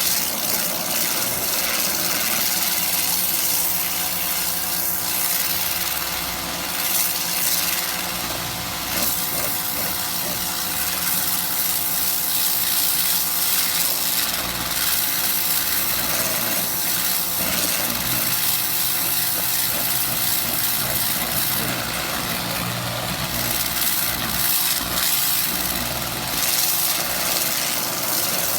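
Karcher K2 electric pressure washer running steadily: its motor and pump give a constant hum under a strong hiss of water spray.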